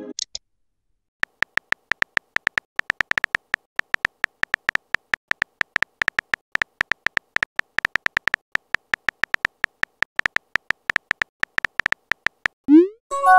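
Simulated phone-keyboard typing sounds from a texting-story app: short electronic ticks of the same pitch, several a second and unevenly spaced, as a message is typed out. Near the end a short rising swoosh sounds as the message is sent.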